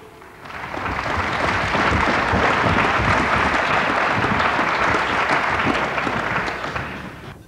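Theatre audience applauding, building up in the first second and dying away near the end.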